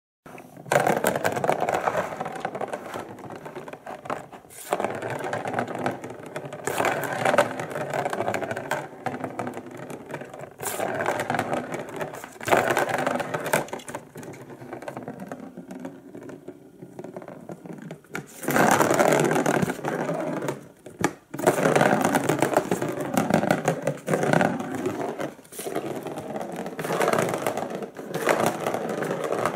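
A ball rolling around the circular plastic track of a Turbo Scratcher cat toy, making a whirring rattle that comes in repeated surges and fades as the ball is batted along.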